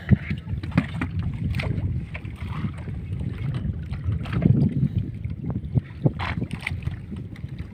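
Gill net being hauled by hand over the side of an outrigger fishing boat: irregular knocks and bumps of the net and its floats against the hull over a steady low rumble.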